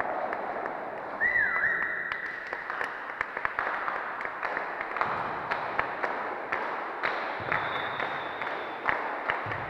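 Scattered hand clapping: many separate sharp claps over a steady hall noise, with a short high squeal a little after a second in.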